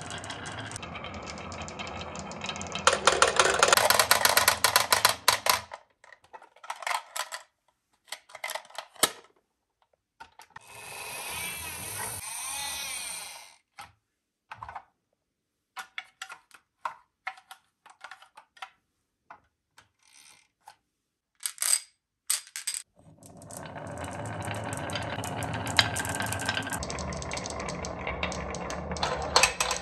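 Marbles rolling and clattering down a wooden wave-shaped marble-run track, a dense, continuous rattle for the first few seconds and again from about two-thirds of the way through. In between come scattered single clicks and knocks, and a steady rushing noise lasting about three seconds in the middle.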